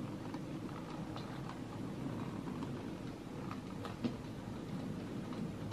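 OO gauge model goods wagons rolling along the layout's track: a steady low rumble of wheels on the rails with light scattered clicks, and one sharper click about four seconds in.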